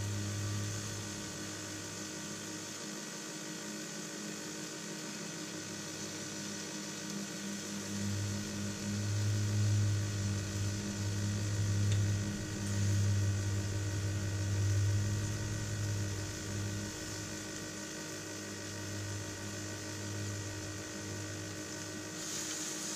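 Power Smokeless Grill running: a steady electric hum and fan whir, with a faint sizzle of pork steaks on the hot grate. The low hum swells louder for several seconds in the middle, then settles back.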